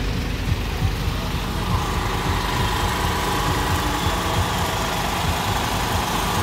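Engine of a parade float vehicle running steadily, a low rumble.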